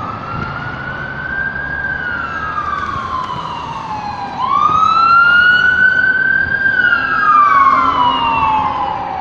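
Wailing siren of a passing fire department ambulance: each cycle climbs quickly, holds, then slides slowly down. It gets louder about halfway through as the vehicle comes close.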